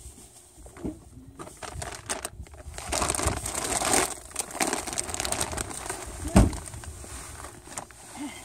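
A plastic cereal bag crinkling and rustling as a child handles it, thickest about three to five seconds in, with one dull thump about six seconds in.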